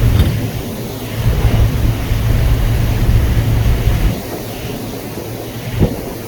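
Wind buffeting the microphone over a steady low rumble, with the rumble dropping away about four seconds in.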